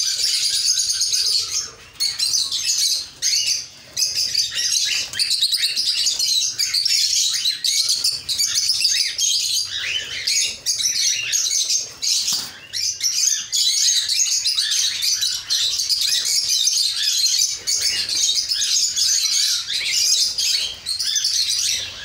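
A flock of cockatiels in a breeding aviary chirping and calling all at once, a dense continuous chatter with brief lulls about two and four seconds in.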